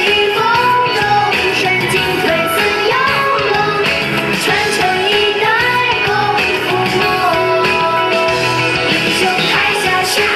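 Recorded music with a melody line over a steady beat, playing loudly for a stage dance.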